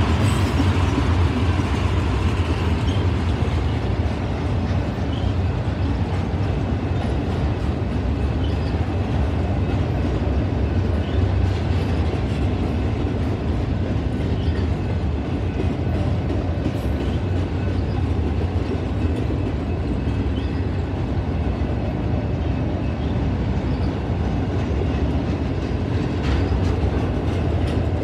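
Freight train rolling past, tank cars and then enclosed autorack cars: steel wheels on the rails make a steady, unbroken low rumble.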